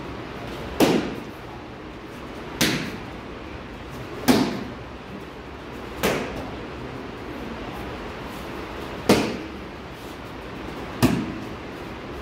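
Six sharp slaps of kicks landing on a handheld kick paddle, each with a short echo, coming about every two seconds with a longer pause after the fourth.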